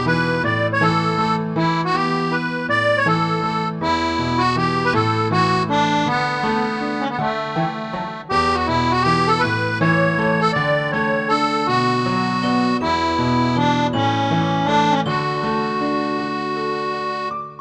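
Background music: an accordion playing a lively tune over a moving bass line.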